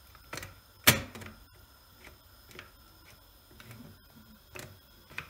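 Clip-lock pressure cooker lid closing, its red central knob turned by hand: a series of separate sharp plastic-and-metal clicks as the lid mechanism locks onto the pot. The loudest click comes about a second in.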